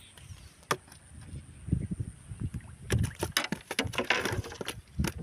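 Water sloshing and splashing with irregular clicks and knocks, which grow busier about three seconds in.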